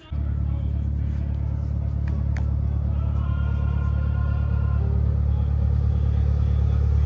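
An engine running steadily nearby: a constant low rumble that grows slightly louder, with a couple of faint clicks about two seconds in.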